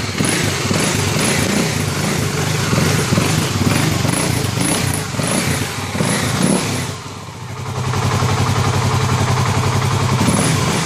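Kawasaki KLX250S single-cylinder four-stroke engine, freshly rebuilt with a 300 big bore kit, running and warming up after its first start. The engine note varies for the first seven seconds, dips briefly, then settles to a steady idle.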